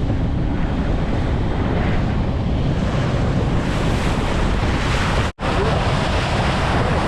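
Wind buffeting the microphone over the rush of sea water along a moving boat, a steady noise that cuts out for an instant about five seconds in.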